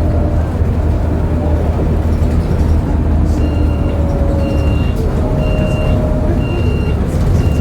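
City bus running, heard from inside: a steady low engine rumble with a whine that slides up and down in pitch. From about three and a half seconds in, a high electronic beep repeats about once a second.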